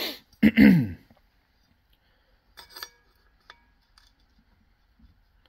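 A brief vocal sound in the first second, then a few light metal clinks with a short ring, about two and a half and three and a half seconds in, as the metal collar is set down over the shaft of a Kawasaki KRX secondary clutch, with softer ticks after.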